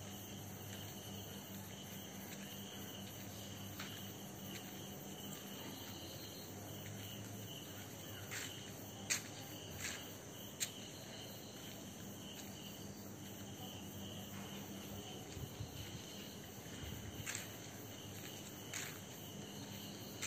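Crickets chirping steadily at night, with a few sharp clicks, the loudest about nine and ten and a half seconds in.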